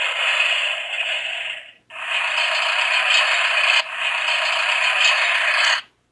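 Sound-book button speaker playing recorded construction-vehicle sound effects, thin and without bass: the clattering rush of a dump truck pouring out gravel and dirt, a brief break just before two seconds in, then the front loader's digging sound, which cuts off near the end.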